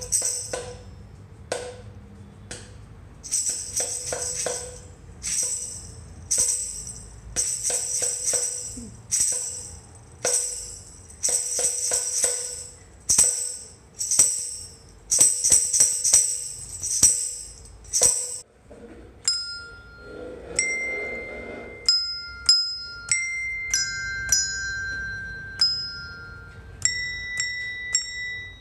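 A red tambourine's metal jingles shaken in rhythmic strokes, roughly two a second. About 19 seconds in this gives way to tuned desk bells struck one after another, each ringing a clear note at a different pitch.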